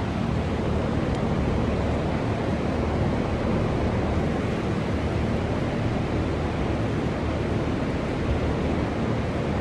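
Steady rushing room noise with a low hum underneath, even throughout, with no distinct knocks or clanks.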